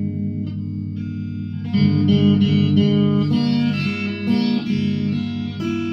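Guitar playing: a low repeating pattern of held notes, joined about two seconds in by a brighter picked melody of short notes.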